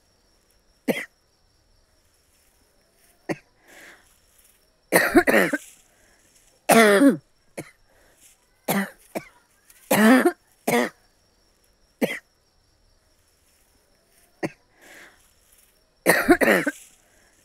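A person coughing over and over: about ten separate coughs and short coughing runs with pauses of a second or two between them, the loudest a few seconds in and near the end.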